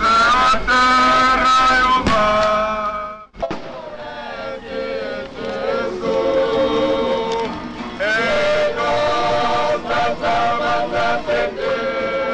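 Men's voices singing a chant, which breaks off about three seconds in and resumes with a different passage of singing.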